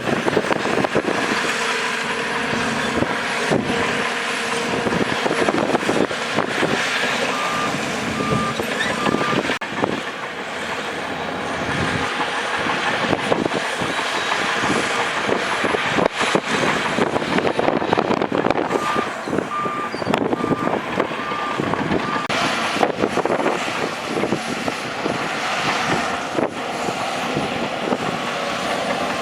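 Crawler bulldozer at work: the diesel engine running under load amid a steady clatter of tracks and rock. A reversing alarm beeps in two short runs of even beeps, about a quarter of the way in and again about two-thirds of the way in.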